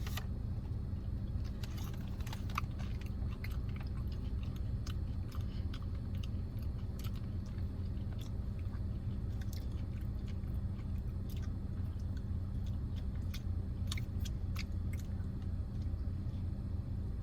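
Close-up mouth sounds of biting and chewing a breaded, cheese-filled jalapeño bite, with scattered short crunchy clicks over a steady low hum.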